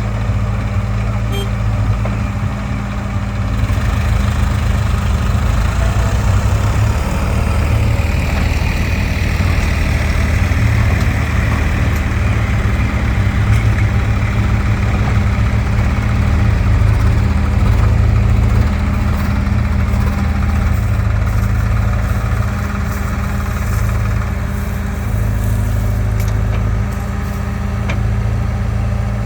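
Heavy diesel engine running close by, a steady low drone that gets somewhat louder a few seconds in and eases off later on.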